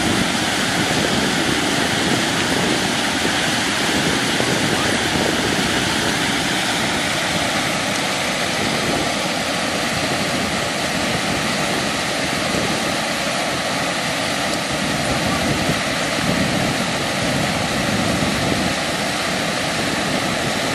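A small waterfall of river water pouring through a gap in an earthen bank into a pool, rushing steadily.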